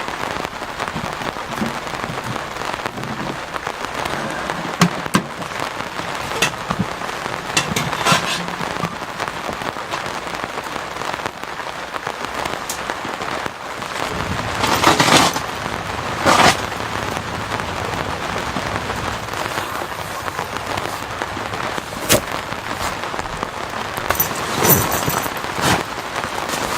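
Steady heavy rain falling, with a handful of louder sharp taps or knocks standing out, the strongest two about halfway through.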